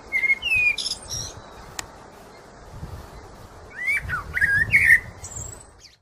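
Eurasian blackbird singing: whistled phrases with high twittering notes, one burst at the start and another about four seconds in, over a low background rumble. The sound cuts off suddenly just before the end.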